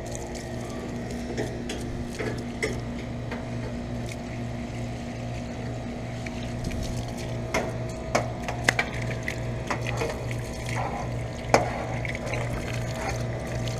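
Garden hose spraying water onto the coil of a switched-off central air conditioner's outdoor unit, with irregular sharper splashes. Under it runs a steady machine hum with a pulsing low note.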